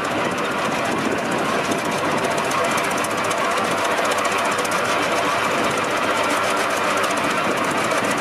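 Holt 75 crawler tractor's four-cylinder engine running under way, a rapid, steady clatter of firing beats and valve gear.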